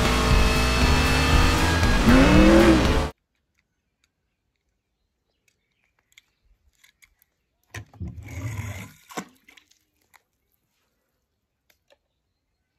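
Loud music mixed with car sound effects, including a rising then falling glide, cutting off suddenly about three seconds in. Then quiet with a few faint clicks and a short rustling clatter about eight seconds in.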